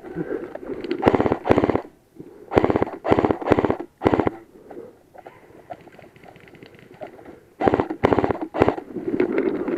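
Airsoft electric gun firing short full-auto bursts of rapid clattering shots: five bursts in the first four seconds, then three more near the end after a pause.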